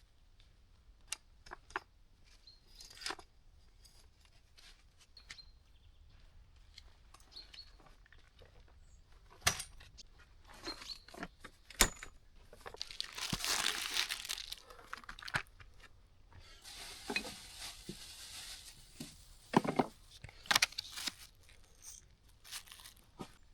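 Scattered light clicks and knocks, with two longer stretches of rustling, as of things being handled.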